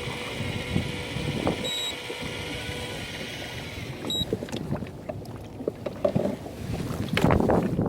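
Small boat on the water with wind buffeting the microphone. A steady whine runs through the first half, broken by two short high beeps a little over two seconds apart, then gusty noise with a few knocks.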